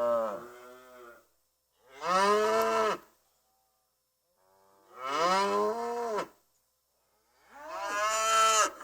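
Cows mooing: the end of one moo, then three separate moos, each a second or so long, rising then falling in pitch, with silent gaps between them.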